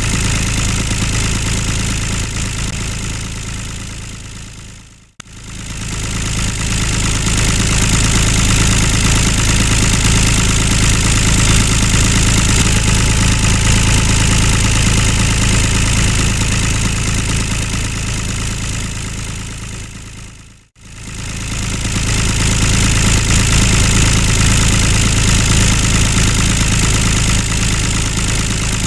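Tractor engine idling steadily. It fades out and straight back in twice, about five seconds in and again about twenty-one seconds in.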